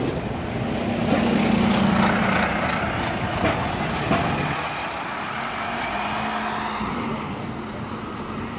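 A city bus passes very close, its engine running with a steady low hum over road noise that peaks about a second or two in and then fades. A taxi passes a few seconds later, with a fainter engine hum near the end.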